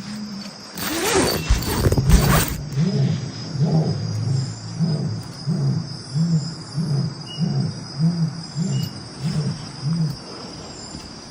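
Jaguar's sawing call: a series of about a dozen deep, hoarse grunts, a little under two a second, over steady cricket chirring, after a couple of seconds of louder noise near the start. A warning call, taken by the campers as a sign the jaguar feels threatened.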